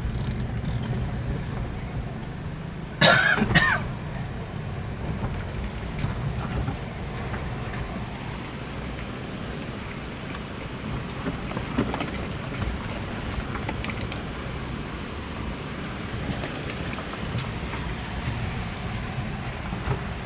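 A vehicle's engine running with steady road rumble while travelling over a rough road. A sharp, loud knock or clatter comes about three seconds in.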